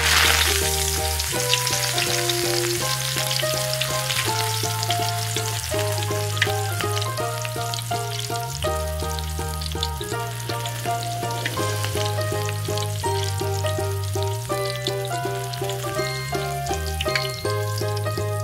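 Breaded chicken pieces deep-frying in hot oil in a miniature steel pot: a dense sizzle full of crackles that starts suddenly as the food goes into the oil. Background music with a steady bass line plays under it.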